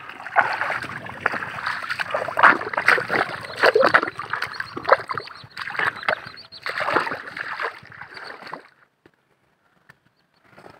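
Footsteps splashing and squelching through soft mud and shallow water in an irregular wading rhythm, cutting off suddenly near the end.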